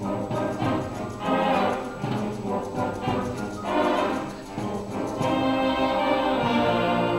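Concert band playing a mambo, with the brass prominent. The full band rises in short repeated phrases, then settles into a steadier held passage about five seconds in.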